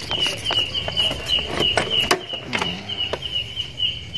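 A motorcycle rectifier-regulator's plastic wiring connector being pulled apart, giving a handful of sharp clicks and knocks. Under it, a steady high insect chirp pulses about four times a second.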